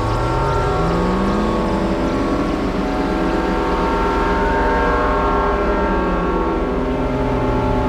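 Roland System-8 synthesizer playing a dense, rumbling drone of many held tones. A low pitch slides upward over the first two seconds.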